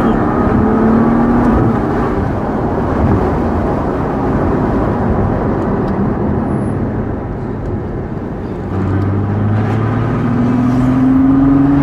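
Ferrari GTC4 Lusso's V12 heard from inside the cabin: mostly road and wind noise at speed with the engine in the background, then about nine seconds in the engine note climbs steadily as the car accelerates again.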